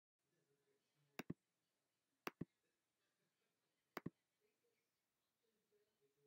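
Three sharp double clicks, each a pair of clicks a split second apart, spaced one to two seconds apart over a faint background hiss.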